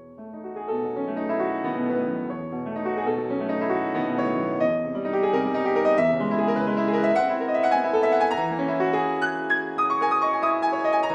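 Solo piano playing a classical concert piece, starting softly and swelling within the first few seconds into dense, flowing, overlapping notes.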